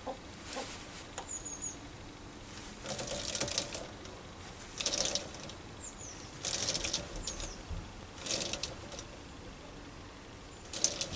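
Small cordless electric screwdriver driving a lathe chuck key through a square-drive adaptor, running in five short bursts of about a second each, with faint squeaks between them as the chuck's jaws are moved in or out.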